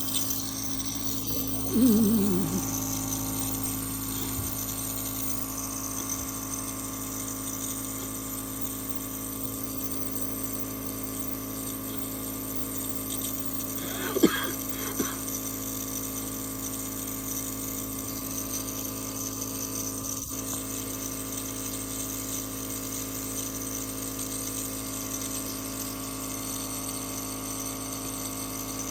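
A steady mechanical hum from a small motor, such as a fan or pump, with several tones held in it. A person's short voice sound falls in pitch about two seconds in, and a brief cough comes about halfway through.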